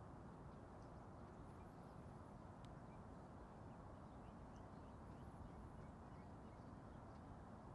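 Near silence: a faint steady low rumble of distant outdoor ambience, with faint high chirps about two seconds in and again about five seconds in.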